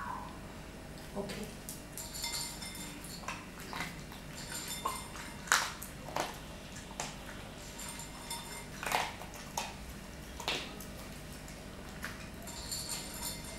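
Small terrier eating from a bowl: irregular crunches and sharp clicks against the bowl, the loudest about five and a half seconds in.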